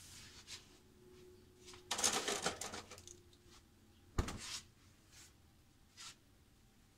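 Damp laundry (a checked cloth) rustling as it is handled, then one sharp snap as it is shaken out and flipped over the washing line. A couple of faint knocks follow.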